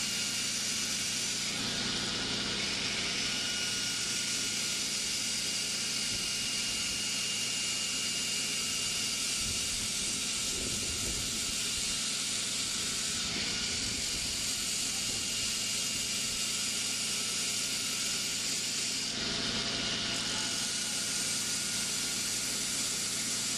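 Power grinder grinding band saw blade steel: a steady hiss with a faint motor whine, shifting slightly a few times as the work is moved against it.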